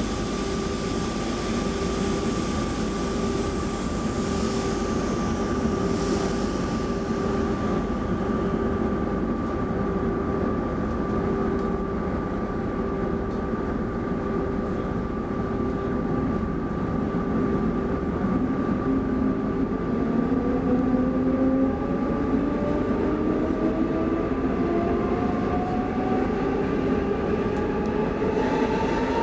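Stockholm commuter rail X10 electric train running, heard from inside the passenger car: a steady rumble with a constant hum. From a little past halfway, an electric motor whine rises steadily in pitch as the train picks up speed.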